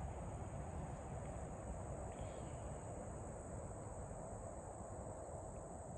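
Insects droning steadily in one even high-pitched tone, over a low, steady background rumble.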